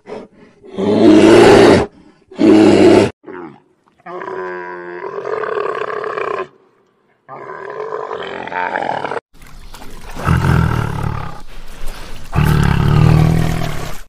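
Several large animals calling one after another: two short, loud growling calls, then two drawn-out pitched bellows around the time a dromedary camel is on screen, then deep, low roars over the last few seconds.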